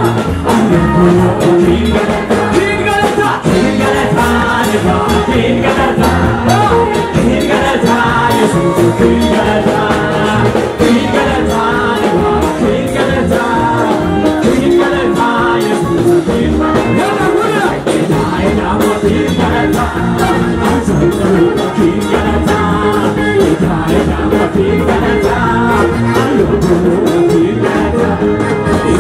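Lively band music with a steady beat, and a crowd of many voices singing along together.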